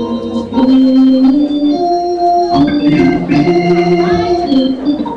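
Organ playing sustained chords that change every second or so, getting suddenly louder about half a second in.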